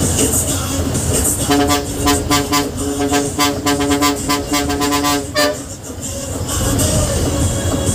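Bus horn honking in a rapid string of short blasts for about four seconds, starting about a second and a half in.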